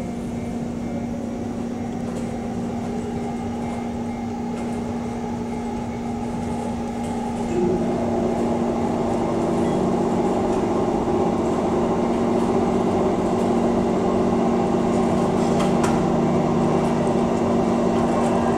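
JNR 583 series electric train idling at the platform, its onboard equipment giving a steady electrical hum. A second, higher hum joins about seven and a half seconds in, and the sound grows louder.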